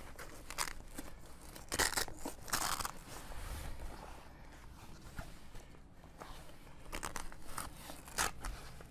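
Handling of tent fabric and the Velcro strip on a foam draught pad: several short rasps and rustles, quieter in the middle.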